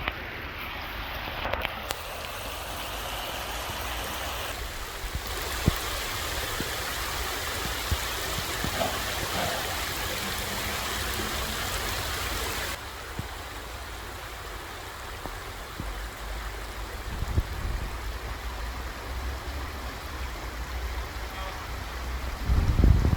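Stream water running over a shallow bed, a steady rushing hiss that turns quieter and duller about halfway through. A few low bumps come near the end.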